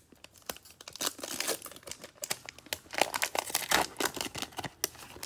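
Foil wrapper of a Panini Mosaic NBA trading card pack being torn open and crinkled by hand: a rapid, irregular crackling, densest and loudest about three seconds in.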